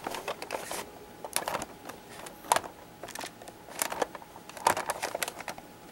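Plastic clicks and knocks from a Mandalorian Assault Transport toy ship as its wings are moved by hand: a scatter of short, sharp clicks at uneven intervals.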